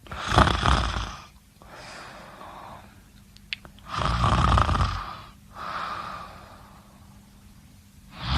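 A person snoring: two loud snores about four seconds apart, each followed by a quieter, longer breath, with a brief click just before the second snore.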